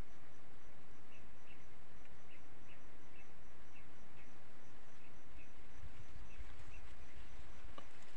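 Rural outdoor ambience: short high chirps repeating about three times a second, with a faint steady pulsing higher up, over a low rustling haze. A brief low rumble comes about six seconds in, and a short sharp click near the end.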